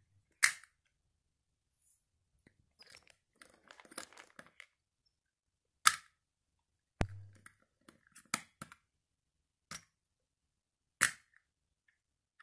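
Scattered sharp clicks and light taps, about half a dozen spread a second or more apart, from small plastic toy figures being handled and knocked together on a table, with faint rustling between them.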